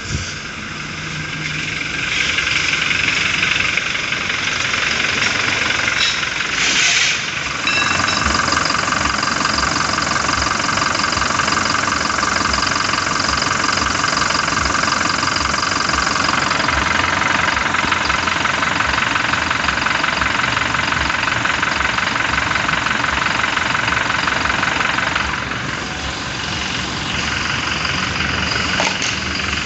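Toyota Fortuner VRZ's diesel engine idling steadily with the AC off, heard at the engine bay with a newly fitted AC compressor; the growling ('ngorok') noise it had before is gone. The sound grows louder about two seconds in and eases somewhat near the end.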